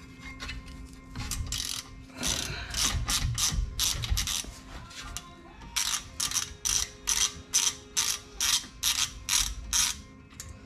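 Ratchet wrench clicking as it undoes a screw at the hub of a BMW 328i's front brake rotor: first a quick, uneven run of clicks, then a steady series of about three clicks a second.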